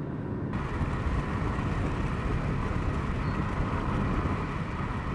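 Steady road and wind noise from a car driving along a highway, heard from inside the car. About half a second in, the higher wind hiss jumps louder and stays there.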